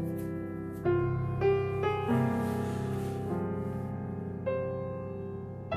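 Slow, meditative piano music: single notes and chords struck at an unhurried pace, about once a second, and left to ring.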